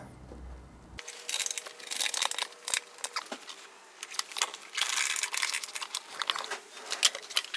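Rustling and irregular clicks as a nylon ratchet strap is handled and pulled across a wooden board frame by gloved hands.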